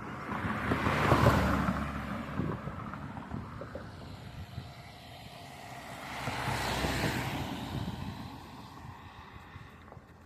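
Noise of passing traffic swelling and fading twice, the louder pass about a second in and a second one near seven seconds.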